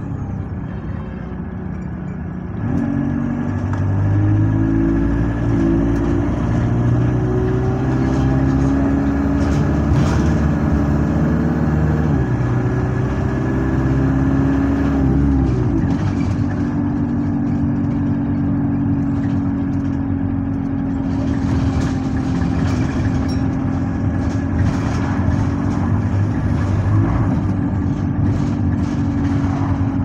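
Bus engine heard on board, pulling hard through its automatic gears: the engine note climbs, drops at a gear change about twelve seconds in, climbs and drops again a few seconds later, then settles into a steady cruise.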